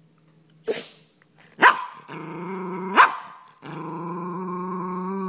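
Cairn terrier growling and barking: a short yap, then two sharp barks each trailing into a long, steady, low growl. The dog is mouthing off in protest at its owner.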